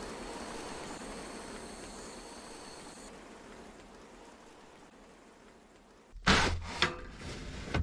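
Light rain on the camper van as an even hiss that thins away over several seconds, then three sharp knocks near the end, the first the loudest.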